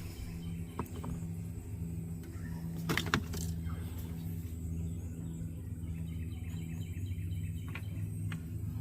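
A steady low engine-like hum, with a few sharp metallic clicks of hand-tool work on the heater hose fitting. The loudest clicks come in a short cluster about three seconds in.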